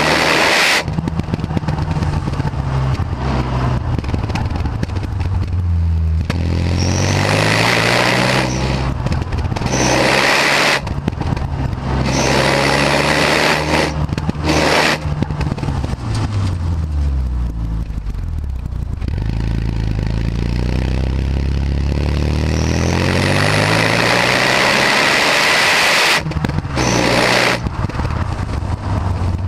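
Renault Mégane R26's turbocharged 2.0-litre four-cylinder heard through its stock exhaust under way: the revs climb several times with short breaks at each gear change, fall away slowly about halfway through as the car slows, then climb again near the end.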